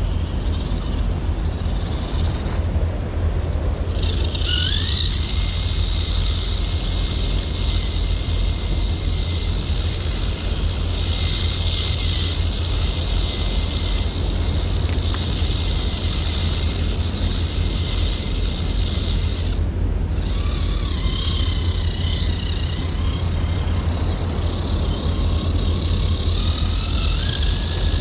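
1/24-scale electric RC rock crawler driving over rock and sand: a thin motor and gear whine that glides up and down in pitch with the throttle, over a steady low rumble.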